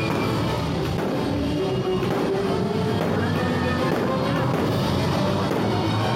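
Loud show music playing steadily, with drums.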